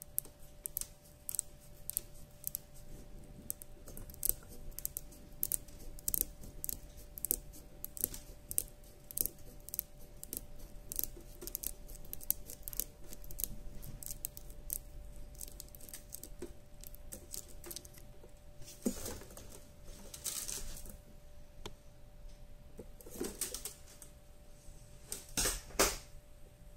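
Steel scissors snipping through a coil of clear nylon fishing line, a rapid run of short sharp clicks from the blades. About two-thirds of the way in, a few longer swishing sounds take over.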